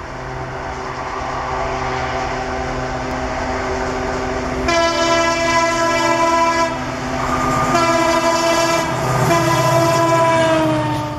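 WDG-4 (EMD GT46MAC) diesel locomotive running at speed with a steady engine drone, then sounding its multi-tone horn in three long blasts from about five seconds in. The horn's pitch sags slightly near the end as the locomotive passes.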